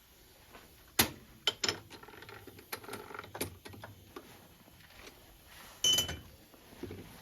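Metal tools and parts being handled at a lathe, giving a scattered series of sharp clicks and knocks. The loudest is a metallic clank with a brief ring about six seconds in.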